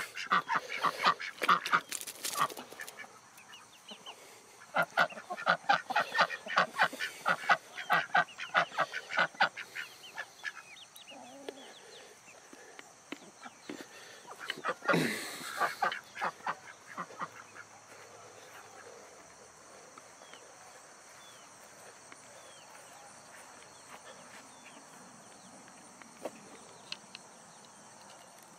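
Domestic poultry calling in quick runs of short, harsh notes, with a brief loud rush of noise about halfway through, over crickets chirring steadily in the background.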